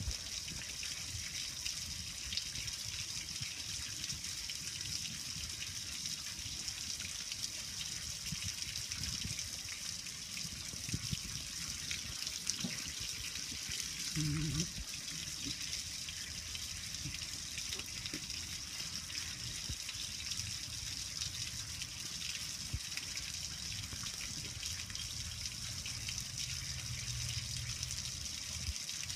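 Water from a garden hose running steadily over a metal gas grill, streaming down its lid and sides and splashing and dripping onto the concrete below.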